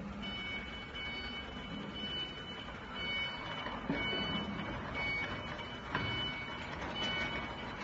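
Electric scissor lift's travel alarm beeping while the mecanum-wheeled base drives, a two-tone beep repeating about once a second. Under it runs a steady hum of the drive, with a couple of short knocks about four and six seconds in.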